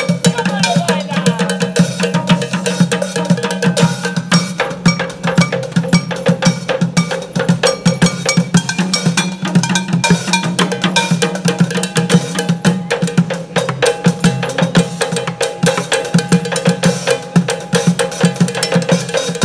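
Bucket drumming: drumsticks beating upturned plastic buckets, plastic water-cooler jugs and metal cooking pots in a fast, dense rhythm.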